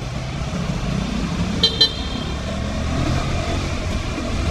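KTM 200 Duke single-cylinder motorcycle riding steadily, its engine and road noise as a continuous low rumble. Two short horn beeps in quick succession about a second and a half in.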